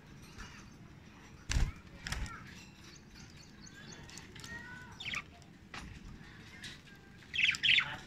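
Budgerigars chirping softly, with a few sharp knocks and a louder flurry of wing flaps near the end as a budgie flutters up from a water tub after bathing.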